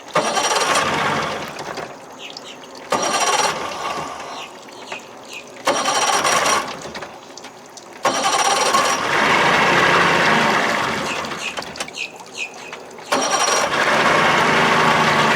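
Outboard motor being cranked with its electric starter in several tries, firing briefly and dying each time, until it catches and keeps running near the end.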